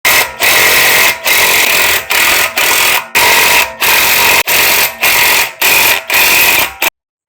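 A power tool running in a long series of short bursts, each roughly half a second to a second, with brief breaks between them. It stops abruptly near the end.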